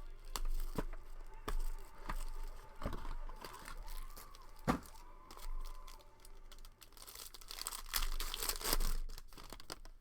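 Plastic wrapping being torn and crinkled while a sealed trading-card box is opened, with scattered sharp clicks and a denser stretch of crinkling near the end.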